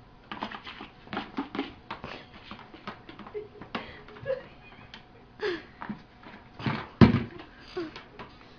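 A run of irregular taps, knocks and scuffles in a small room, with a few short low vocal sounds and one loud thump about seven seconds in.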